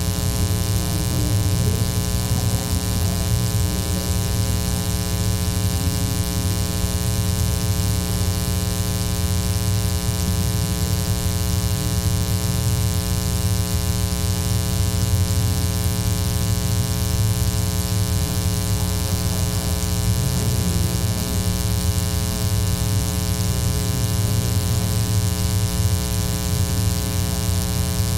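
Steady electrical mains hum with a buzzing edge, unchanging throughout, with faint conversation just audible beneath it.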